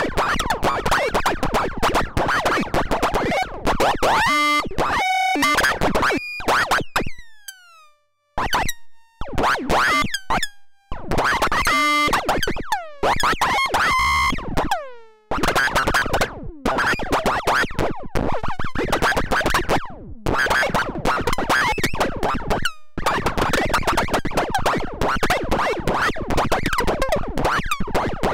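Make Noise Richter Wogglebug random voltage generator heard through its audio oscillator outputs: a rough, chaotic jumble of rapidly stepping synthesizer tones. A few times between about 5 and 15 seconds the sound breaks off, leaving single tones that ring out and fade away.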